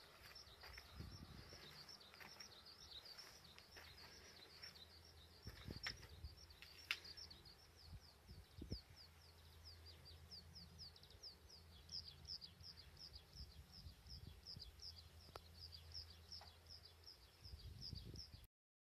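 Faint outdoor ambience with a bird chirping in a quick repeated series, busier in the second half, over a low hum and a few soft knocks. It cuts off suddenly near the end.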